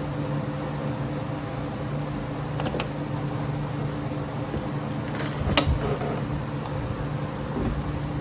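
Steady mechanical hum like a shop fan running, with a few light clicks and one sharp click about halfway through as small metal parts of the carburettor linkage are worked loose.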